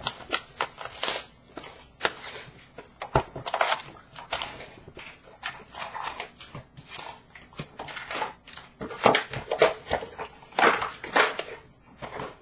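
A trading-card hobby box being opened by hand and its wrapped card packs pulled out and handled. The plastic wrap and cardboard make an irregular run of crinkling, rustling and scraping.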